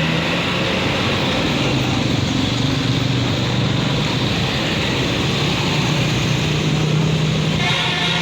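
Tour bus diesel engine running steadily with a constant low hum.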